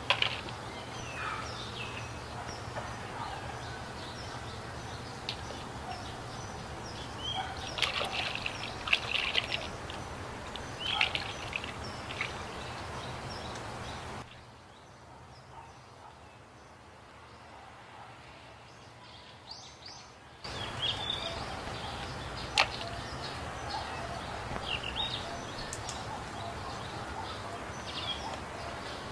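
Outdoor background with a steady low hum and scattered short bird chirps. Now and then there is splashing and the clatter of plastic toys handled in a tub of water, with one sharp tick about two-thirds of the way through.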